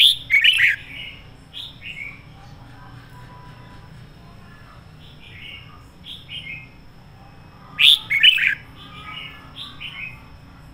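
Red-whiskered bulbul singing: a loud burst of song right at the start and another about eight seconds in, with short falling whistled notes scattered between them.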